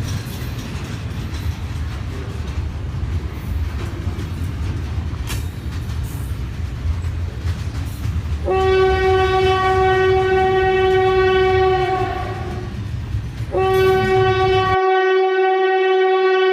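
Train running with a steady low rumble and clickety-clack, then the locomotive's horn sounds two long steady blasts about halfway through; the rumble cuts off suddenly during the second blast.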